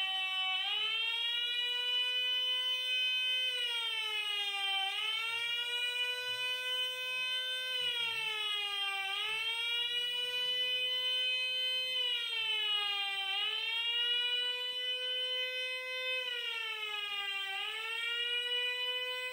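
Electronic fire-alarm siren of a gas fire-suppression system sounding in slow cycles: the pitch glides up, holds, then sinks, roughly every four seconds. It is the evacuation alarm sounding while the discharge delay timer counts down after a manual start.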